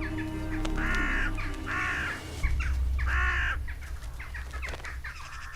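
Crow cawing three times, harsh calls about half a second each, a second or so apart.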